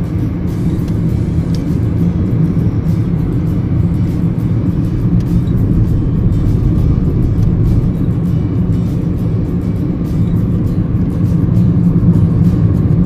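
Steady rumble of a car driving, heard from inside the car.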